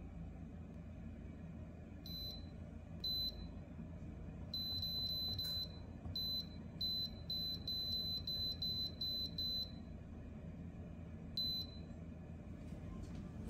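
Touch control panel of an electric countertop cooking appliance beeping as its buttons are pressed: a few single short beeps, one longer beep, a quick run of about eight beeps, and one more near the end, over a faint low hum.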